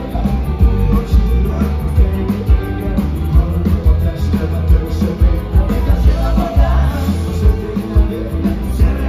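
Live rock band playing a song with a singer, electric guitar and drums keeping a steady beat.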